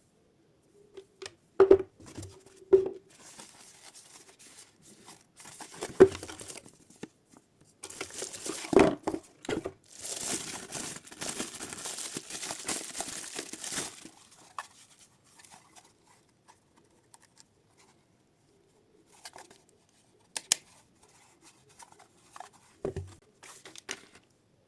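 Packaging being torn open and crinkled during an unboxing, with a few sharp knocks as items are handled and set down. A longer stretch of rustling tearing comes in the middle, and scattered clicks follow.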